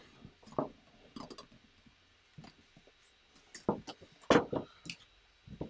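Small clicks and taps of LEGO plastic pieces being handled and pressed together, a few scattered clicks, the loudest about four seconds in.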